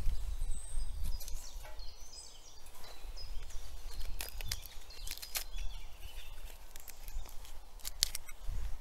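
Outdoor ambience: small birds chirping faintly over a low wind rumble, with a few sharp clicks.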